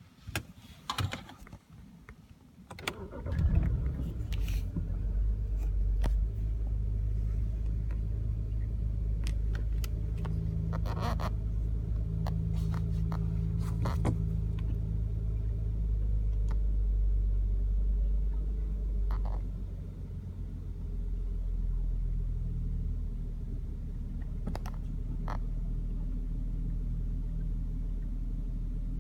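A few clicks, then about three seconds in a BMW N53B30 3.0-litre straight-six starts and settles into an idle that is rough, the kind of idle that goes on to bring up the check-engine light. Near twenty seconds the idle drops slightly lower and quieter.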